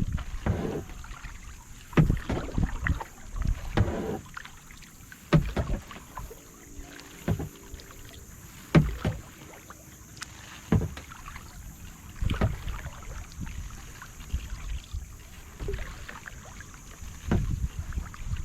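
Kayak paddle strokes: the blades dip and splash into the lake water about once every one to two seconds, with water dripping off the paddle between strokes.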